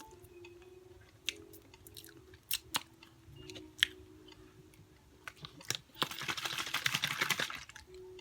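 Close-miked chewing with scattered wet mouth clicks and smacking, then a loud, dense burst of crunching about six seconds in that lasts over a second: a bite into extra-crunchy fried chicken.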